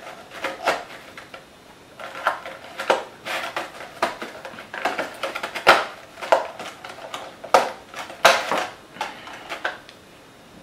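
Packaging being handled: an irregular string of sharp clicks, taps and rustles as a corded earbud headset is worked loose from its black packaging tray.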